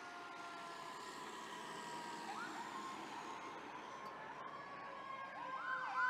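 Fire truck siren: a steady wail sliding slowly down in pitch, with short up-and-down yelps about two seconds in and again, louder, near the end.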